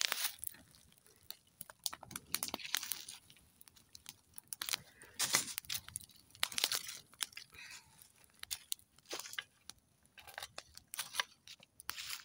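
Dry twigs and fallen leaves crackling and crunching at a small wood fire being started, in irregular sharp clicks and short rustling bursts.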